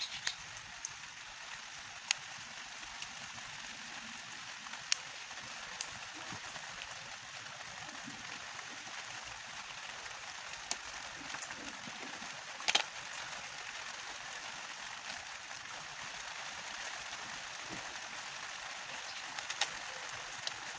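Steady hiss with scattered sharp clicks and taps as the opened tablet's plastic back housing and internal parts are handled, the loudest a double click about two-thirds of the way through.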